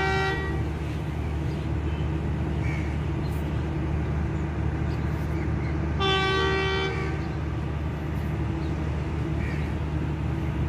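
Pakistan Railways diesel locomotive horn sounding a chord. A blast ends just after the start and a second blast of about a second comes about six seconds in, over a steady low diesel engine rumble.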